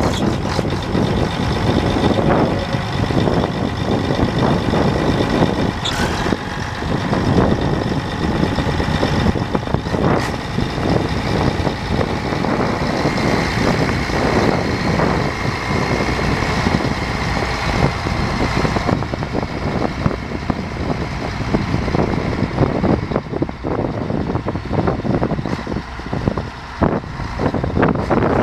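1987 Case IH 4894 four-wheel-drive tractor's diesel engine running steadily as the tractor moves off across the field. A thin high whine rides over it for several seconds in the middle.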